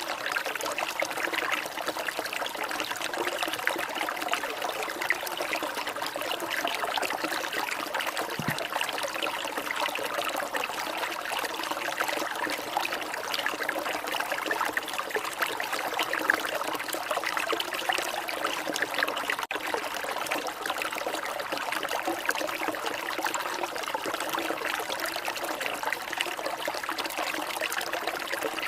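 Water trickling and splashing in a steady, unbroken flow.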